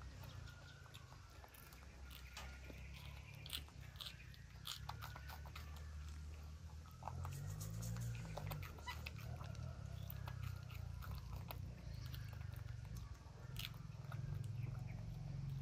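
Young macaques crunching and chewing green pea pods, with irregular sharp bites and smacks. A steady low rumble lies underneath.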